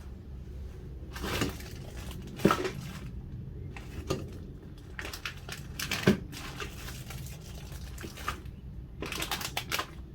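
Handling noises: irregular rustles, crinkles and light clicks, in scattered clusters, over a faint steady low hum.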